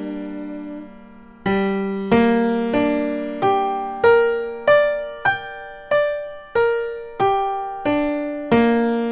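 Piano sound from a phone keyboard app playing a G minor arpeggio one note at a time. The notes are evenly spaced, about one and a half a second, and start about a second and a half in as an earlier note dies away. They climb over two octaves and then come back down.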